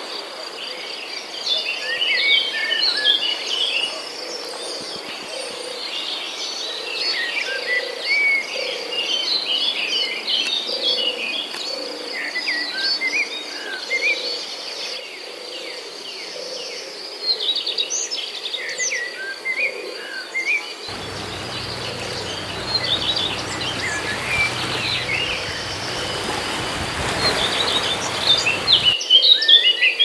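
Forest ambience: many birds chirping and calling in short, quick notes over a steady high insect trill, like crickets. From about two-thirds of the way in, a rushing noise joins for several seconds, then drops out.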